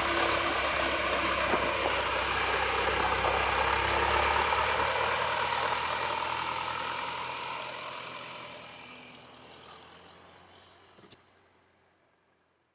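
A vehicle engine running steadily. It fades out gradually from about five seconds in until it is almost gone, with one short click near the end.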